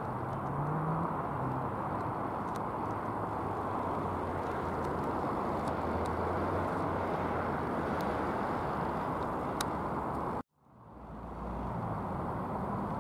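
Steady outdoor roar of distant road traffic. About ten and a half seconds in, the sound cuts out suddenly and fades back up over a second at a cut between recordings.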